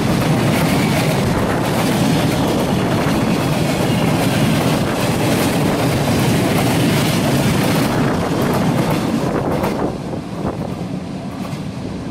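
Freight train boxcars rolling past close by, their steel wheels clattering over the rail joints. The noise drops about ten seconds in as the last wagon goes by.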